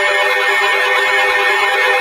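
Emergency alert tones from alert receivers sounding loudly: several steady tones at once, overlaid with fast warbling sweeps up and down, announcing a new warning.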